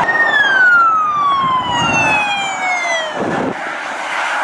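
Police car siren winding down in one long falling tone, from high to low over about three seconds, with a brief lower downward sweep a little after three seconds in.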